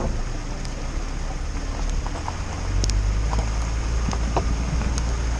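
A van driving through deep floodwater: the engine rumbles under a steady rush of water, and the rumble grows louder about halfway through.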